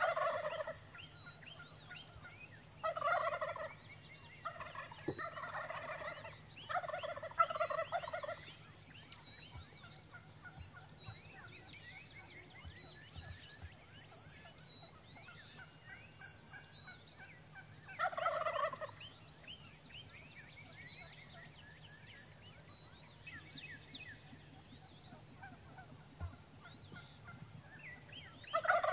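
Rio Grande wild turkey gobblers gobbling from the roost. There are several loud rattling gobbles in the first eight seconds, another after a long gap, and one more at the end.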